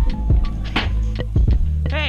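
Background music with a steady beat: deep bass notes and drum hits about every two-thirds of a second.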